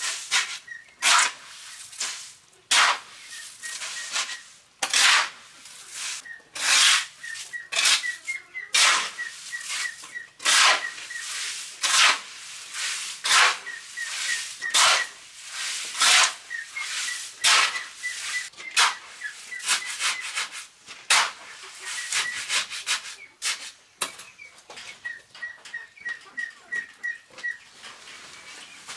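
A hand tool working material in repeated rasping strokes, roughly one a second and quicker near the end, with faint high chirps running alongside.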